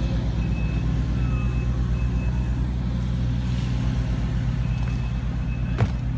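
A heavy vehicle's engine runs with a steady low rumble while a backup alarm beeps on and off. There is one sharp knock near the end.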